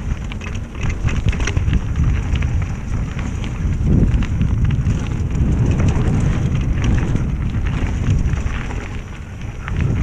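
Wind rushing and buffeting on the action-camera microphone as a mountain bike descends fast, with the knobby tyres rolling over dirt and loose stones and scattered clicks and rattles from the bike throughout.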